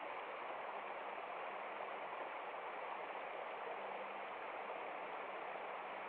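Shallow stream flowing over and between rocks, a steady, even rush of water.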